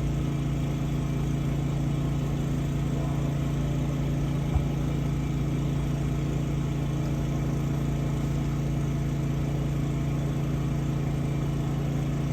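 Sewer water jetter's engine running steadily while it power-jets a grease-clogged sewer line, with a short click about four and a half seconds in.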